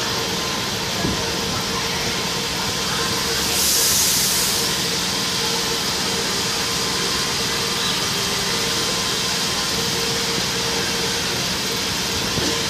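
São Paulo Metro train standing at the platform with a steady electric hum, and a short burst of compressed-air hiss about three and a half seconds in.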